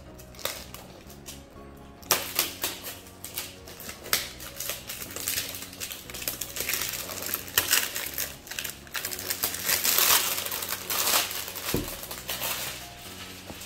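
Clear plastic film crinkling and crackling as it is peeled and pulled off a cardboard box. It starts about two seconds in, with many small sharp crackles, and is loudest near the end. Background music plays underneath.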